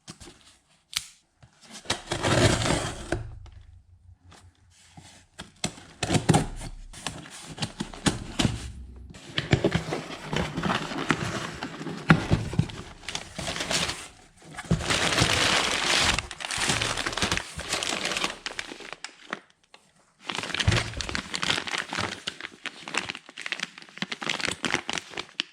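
Crinkling and rustling in irregular bursts, like plastic or packaging being handled, with scattered sharp clicks and knocks.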